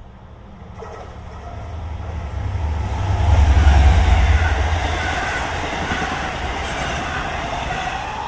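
Long Island Rail Road train passing: the sound builds to its loudest with a deep rumble about three to four seconds in, then eases off slowly as the cars run by.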